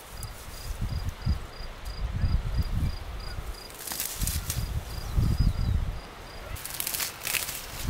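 An insect chirping in a steady, even pulse of about four chirps a second, stopping about six and a half seconds in. Louder low rumbling bursts come and go underneath, with brief rustling about four seconds in and near the end.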